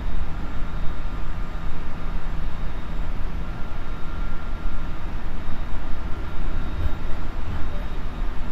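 Onboard running noise of a JR Central 373 series electric train, heard inside the KuMoHa 373 motor car: a steady low rumble of wheels on rail with a faint steady whine over it.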